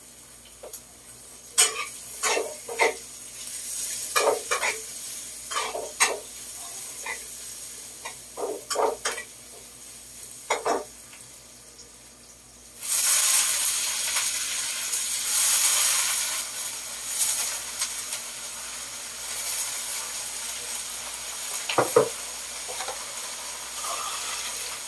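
Scattered clinks and knocks of a bowl and utensils, then about 13 seconds in a sudden loud sizzle as shredded cabbage is tipped into hot oil in a wok; the frying sizzle carries on with stirring, and a sharp knock of a utensil on the pan comes near the end.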